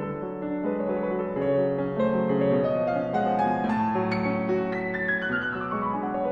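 Background piano music, with a descending run of notes in the second half.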